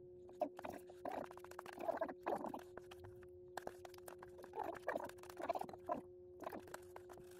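Metal spoon scraping and clicking against a plastic food container as the last of the yogurt is scraped out, with soft eating and lip-smacking sounds in between. A faint steady hum runs underneath.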